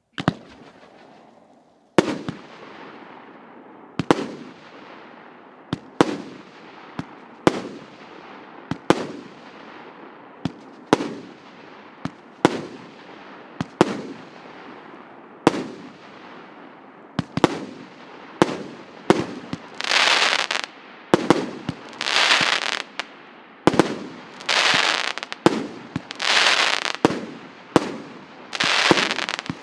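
A 1.2-inch, 100-shot consumer firework cake firing shot after shot, each a sharp bang. The shots start about two seconds apart and quicken to about one a second. In the second half each shot is followed by a high-pitched hissing burst about a second long.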